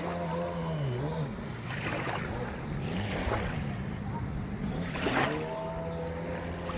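Jet ski engine running, its pitch dipping and climbing as the rider works the throttle. Several short rushes of splashing or wind noise come through, the strongest about five seconds in.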